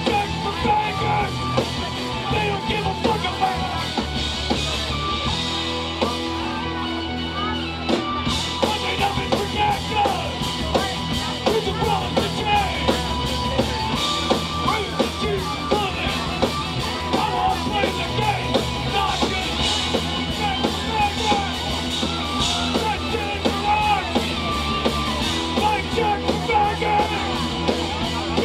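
Live rock band playing: electric guitar, bass and drum kit, with a singer's voice over the band. About six seconds in the cymbals drop back briefly, and the full drums come back in around eight seconds.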